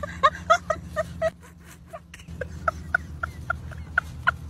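A rapid run of short, pitched animal calls, about four or five a second, over a steady low hum.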